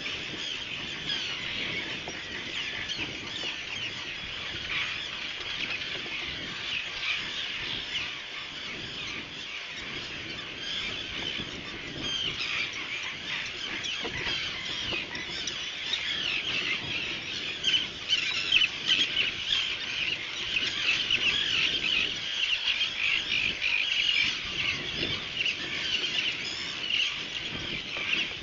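Seabird colony: many birds calling at once in a dense, high-pitched chatter, growing louder past the middle.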